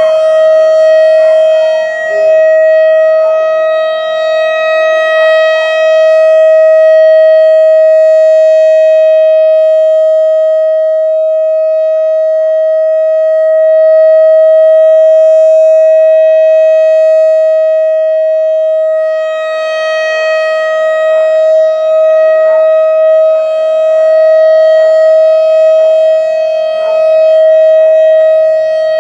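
Whelen WS-3016 electronic outdoor warning siren sounding its test, a loud steady single tone held without rising or falling, its level slowly swelling and fading.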